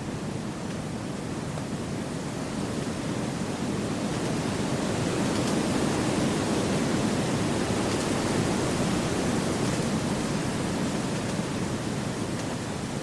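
Wind blowing through forest trees as a steady, even rush, swelling a little louder around the middle and easing off near the end.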